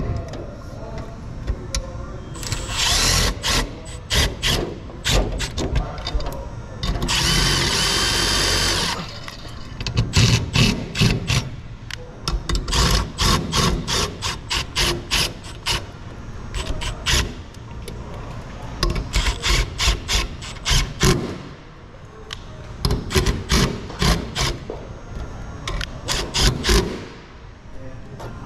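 Milwaukee Fuel cordless drill driving screws into a sheet-metal sign panel and its bracket, in many short runs and stops. There are two longer steady runs, a few seconds in and again about eight seconds in.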